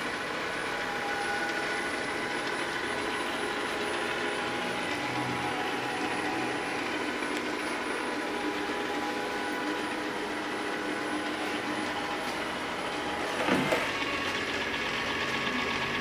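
Trifo Max Pet robot vacuum driving itself back to its charging dock: a steady mechanical whir of its motors with several held tones, and a brief louder sound near the end as it reaches the dock.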